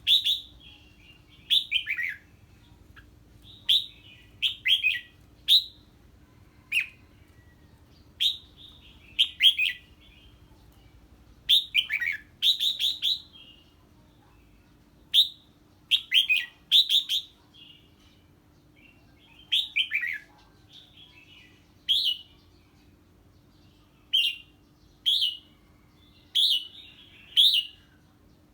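Red-whiskered bulbul singing short, sharp phrases that drop in pitch, one every second or two with brief gaps. This is its song in reaction to an unfamiliar bird.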